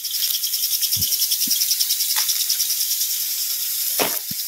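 An insect chirring in a fast, even pulse over a steady hiss, fading after about three seconds, with a few soft thumps.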